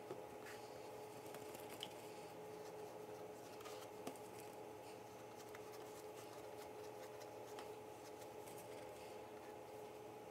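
Faint handling sounds of a silicone basting brush dabbing oil onto a portobello mushroom cap and the cap being moved on a plastic cutting board, with a few light ticks, over a steady low hum.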